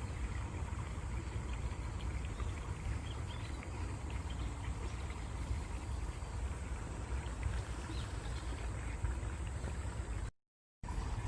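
Stream water running steadily, with a strong low rumble underneath and small splashy ticks on top. The sound cuts out completely for about half a second near the end.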